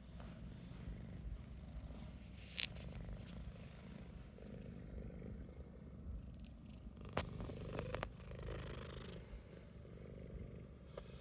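Domestic cat purring steadily in a low, rhythmic rumble, with a few sharp clicks, one a couple of seconds in and several more past the middle.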